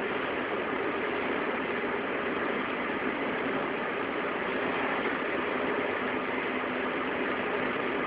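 Abnormal noise from a car's wheel hub: a steady, even noise with a faint steady hum in it, unchanging throughout.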